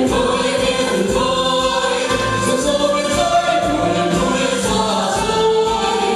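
Vietnamese stage music: a group of voices singing together over a steady beat and sustained instrumental accompaniment.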